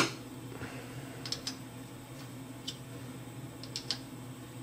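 A sharp metallic click, then a few light scattered ticks of a hand tool working against the steel gang-tool block as a screw is snugged up, over a steady low hum.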